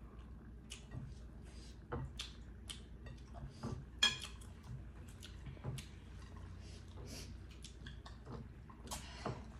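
Eating at a table: scattered clicks and taps of a metal fork on ceramic plates along with eating sounds. One sharper ringing clink comes about four seconds in.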